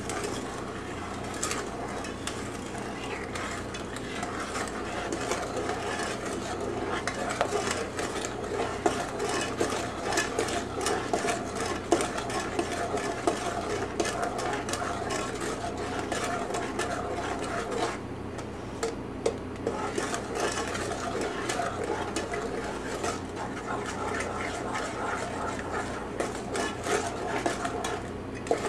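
Wooden spoon stirring and scraping around a stainless steel saucepan, a steady run of small irregular scrapes and knocks against the pot. The chocolate-sugar mixture in it is heating on high toward a boil.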